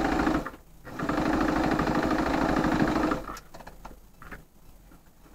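Electric sewing machine stitching through quilted fabric and binding in two runs: a short burst, a brief pause, then about two seconds of fast, even stitching that stops just past three seconds in. Faint clicks of handling follow.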